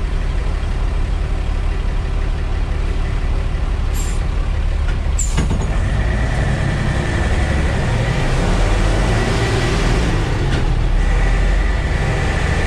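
Mercedes-Benz OF-1315 bus's front-mounted diesel engine running in the cab, with its rumble growing from about six seconds in as the bus moves off, when a thin steady whine joins it. Two sharp knocks or rattles come at about four and five seconds.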